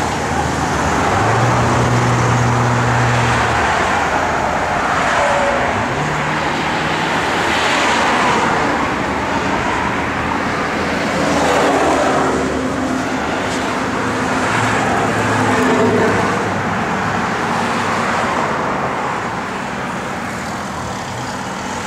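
Steady motor-vehicle noise, engines running with the sound of traffic, swelling and fading several times.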